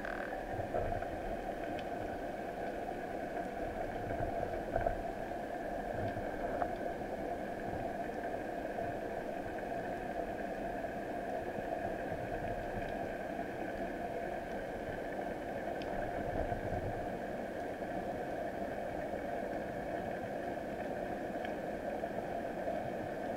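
Underwater ambience picked up by a camera mounted on a speargun: a steady, muffled hiss with a few faint clicks scattered through it.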